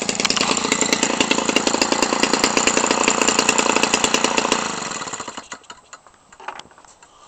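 Homelite 25cc two-stroke string-trimmer engine, converted for giant-scale RC airplanes, running with an 18x6 propeller, then shut off about four and a half seconds in and spinning down to a stop within about a second.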